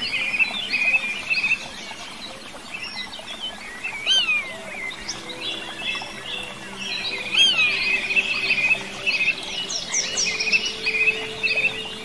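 Songbirds singing in a busy chorus of chirps, trills and quick slurred notes. One bird repeats a clear rising-and-falling whistle every three to four seconds.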